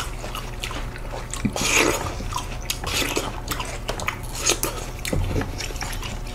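Seedless watermelon being bitten and chewed: wet, juicy crunching and slurping, a string of small sharp clicks.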